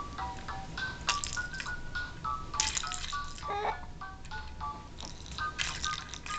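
Electronic baby toy playing a simple tune of plain beeping notes that step up and down a few times a second, with a quick falling slide about halfway through.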